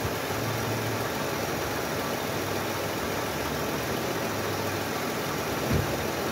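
Ford Windstar minivan engine idling steadily, with a single soft thump near the end.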